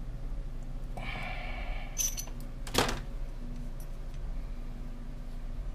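Hand grease gun being worked while it is primed: a short scraping rasp, then a metallic click and one sharp clack.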